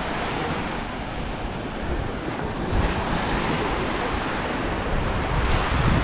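Small Mediterranean waves breaking and washing up on a sandy shore, with wind buffeting the microphone in low rumbling gusts about three seconds in and again near the end.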